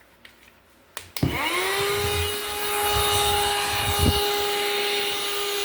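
Portable cordless car vacuum cleaner with its dust attachment fitted, switched on with a click about a second in: the motor whine rises quickly to a steady high pitch over a rush of air, and it keeps running steadily.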